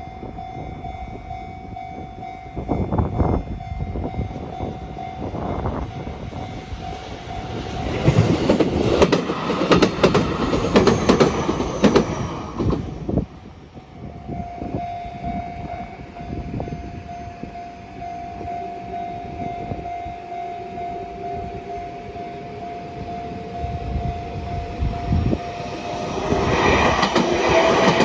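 Level crossing warning bell ringing steadily while a train passes over the crossing, its wheels clicking over the rail joints, loud for about five seconds from some eight seconds in. Afterwards the bell keeps ringing under a rising whine, and a second train comes in loudly near the end.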